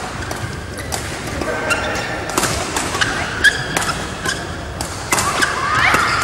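Badminton rally: irregular sharp cracks of rackets striking a shuttlecock, with footsteps and short rising shoe squeaks on the court floor near the end.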